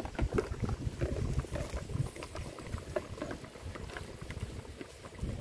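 Pot of fish cooking down in coconut milk, bubbling with many small irregular pops over a low rumble.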